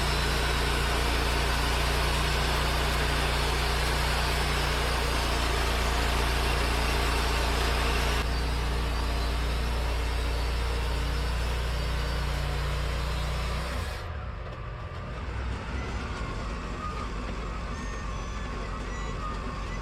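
Wood-Mizer LT40 portable sawmill running, a steady engine hum under a loud hiss. The hiss thins about 8 seconds in, and near 14 seconds the steady hum stops abruptly, leaving a quieter, rougher mechanical noise.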